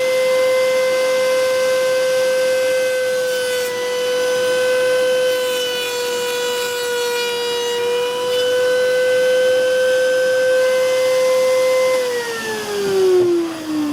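Electric power tool motor running with a steady high whine that sags slightly in pitch for a few seconds in the middle. About twelve seconds in it is switched off and winds down, its pitch falling steadily.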